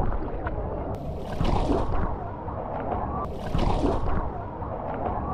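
Water running down the lanes of a water slide and splashing, with wind buffeting the microphone.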